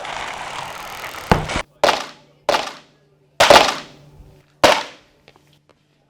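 Home-made foley: a steady hiss for about the first second, then five sharp hits in a row, each cut short and fading within half a second, the first the heaviest. A few faint ticks follow near the end.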